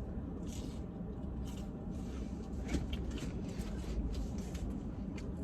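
Quiet eating sounds: scattered soft chewing and rustling noises over a steady low rumble.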